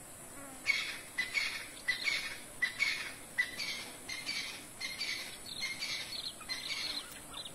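An animal calling: a rapid series of a dozen or so short, high-pitched calls, about two a second, starting just under a second in.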